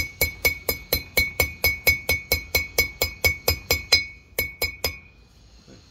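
Hammer tapping a new steel bearing race into a brake rotor hub, working around its edge to drive it in evenly. The strikes are quick and even, about four a second, each with a metallic ring. They pause about four seconds in, then three quicker taps follow and the tapping stops.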